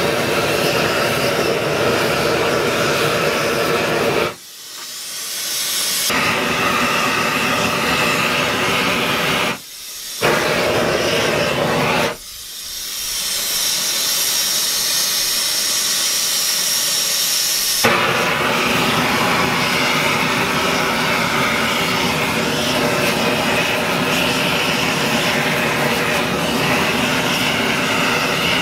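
Propane torch burners running with a steady hiss as they heat a copper locomotive firebox and fire tubes for silver soldering. The sound drops away sharply three times, about 4, 10 and 12 seconds in, and swells back each time.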